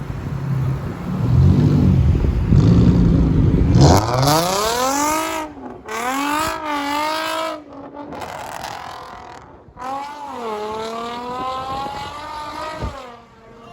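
Nissan 350Z's 3.5-litre V6 revving hard several times, its pitch climbing and falling with brief cuts between pulls, as the car is thrown into a drift. A low rumble fills the first few seconds before the revving starts.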